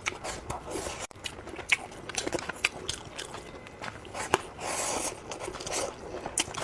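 A person eating close to the microphone: biting and chewing food, with many short crunchy clicks and a longer, louder crunch or slurp about five seconds in.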